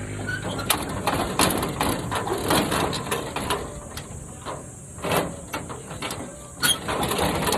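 Footsteps of someone walking on a farm path: irregular scuffs and knocks. A steady engine hum dies away in the first second.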